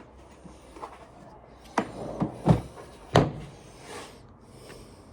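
A few knocks and clunks of tools being picked up and set down, bunched about two to three seconds in, with quieter handling noise between.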